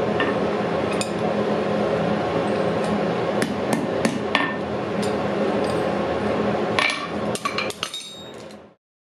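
Hand hammer striking a small bodkin arrowhead on an anvil: scattered sharp, ringing strikes over a steady noise, then a quick run of lighter clinks near the end before the sound cuts off suddenly.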